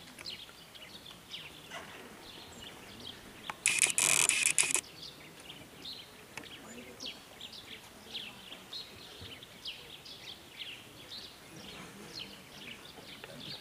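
Small birds chirping with many short, high calls throughout. About four seconds in, a loud, harsh burst of rapid clicking lasts about a second.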